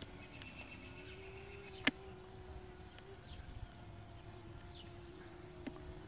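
Faint steady hum of a Parrot Anafi quadcopter's propellers climbing overhead, with birds chirping. A sharp click, the loudest sound, comes a little under two seconds in, and a smaller one near the end.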